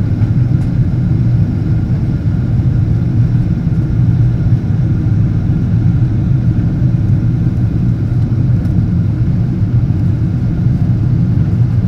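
Steady low cabin rumble of a Boeing 777-200 airliner on approach: engine noise and air rushing past the fuselage, with a faint steady higher tone above it.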